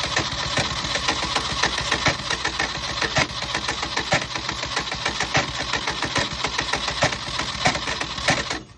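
TDT-55 skidder tractor's engine running with a rapid, uneven knocking, dying away near the end.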